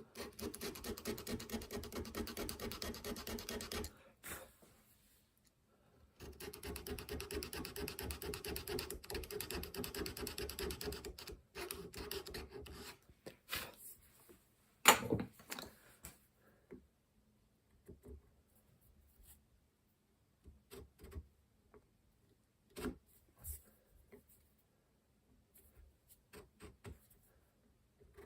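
Fast rasping strokes of a hand tool cutting into a screwdriver's steel blade, in two long runs, then scattered light clicks and knocks with one sharp knock about halfway through.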